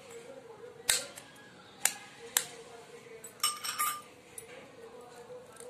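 Kitchenware being handled: three sharp clicks in the first two and a half seconds, then a short run of ringing clinks about three and a half seconds in, over a faint steady hum.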